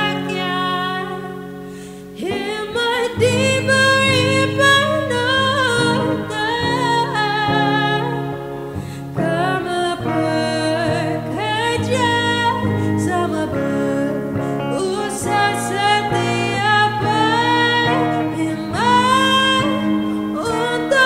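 A song: a solo female voice sings a melody over sustained instrumental accompaniment. The accompaniment thins briefly about two seconds in, then comes back fuller.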